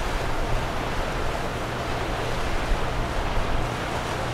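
Azimut 72 motor yacht cruising past: a steady low engine drone under the rushing wash of water from its hull and wake.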